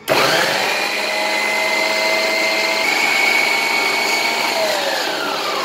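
Preethi Zodiac food processor motor chopping garlic cloves with its blade: it starts suddenly and runs loud and steady with a whine that steps up slightly about three seconds in, then winds down near the end, its whine falling in pitch.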